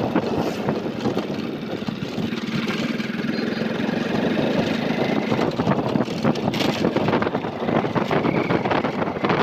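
Motorcycle engine running steadily while the bike rides along a road, with wind rushing over the microphone.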